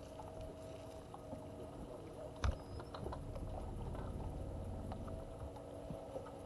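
Steady hum of a bass boat's electric trolling motor, with scattered light clicks and one sharp knock about two and a half seconds in.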